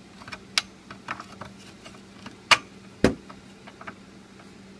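Scattered small clicks and knocks of a plastic panel-mount fuse holder being pushed into and handled against a hole in a guitar amp's aluminium chassis, with a sharper click about two and a half seconds in and a heavier knock just after.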